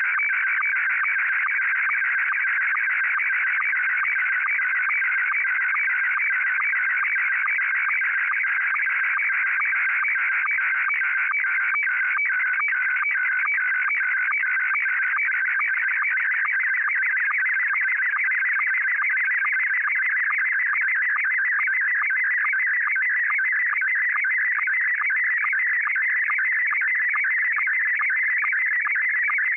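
Slow-scan TV (SSTV) image transmission from MMSSTV software: steady warbling tones between about 1.2 and 2.3 kHz, ticked through at a regular beat by short sync pulses. This is a photo being encoded line by line as audio while it is recorded onto cassette tape.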